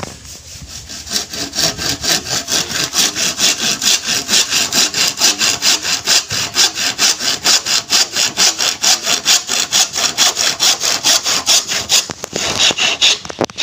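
Handsaw cutting through a bamboo tube in quick, even back-and-forth strokes, about four a second. It starts about a second in and stops shortly before the end.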